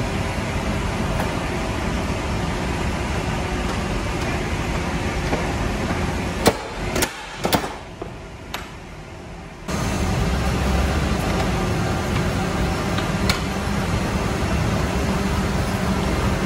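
Steady mechanical hum and rumble of airport cargo-loading machinery at a freighter's main-deck door. About six seconds in the hum drops away for about three seconds, with a few sharp metallic clicks and knocks. It then returns with a heavier low rumble.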